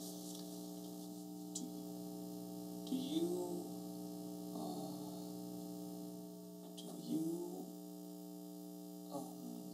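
Steady electrical hum made of several held tones, broken by a few short hesitant voice sounds about three and seven seconds in.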